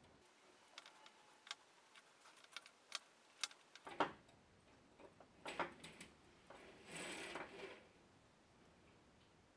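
Small plastic and metal shower-hose fittings handled close up: a string of light clicks, the loudest about four seconds in, then a short rubbing scrape a few seconds later.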